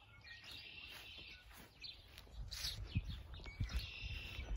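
Birds chirping and singing in short phrases, with a low irregular rumble on the microphone that grows over the second half.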